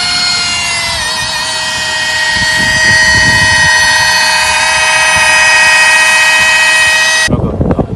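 Electric rotary polisher with a foam pad buffing a headlight lens: a loud, steady motor whine at full speed, dipping slightly in pitch about a second in as it settles under load. The whine cuts off suddenly near the end, leaving low rumbling wind noise.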